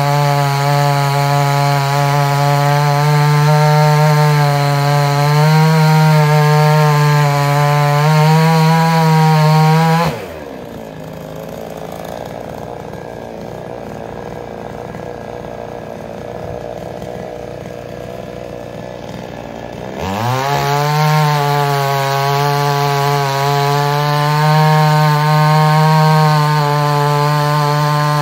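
Chainsaw running at full throttle, cutting into logs, its pitch wavering slightly under load. About ten seconds in it drops to idle, and about twenty seconds in it revs back up and cuts again.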